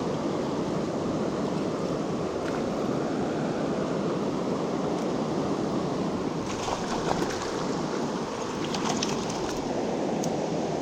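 Steady rush of a large, fast-flowing river, with a few faint clicks.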